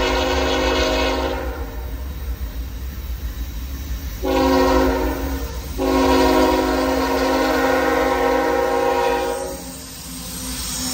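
Locomotive air horn on an approaching CSX freight train sounding the grade-crossing signal: a blast that ends after about a second and a half, a short blast near the middle, then a long blast that stops about a second before the end. Under it runs the steady low rumble of the train.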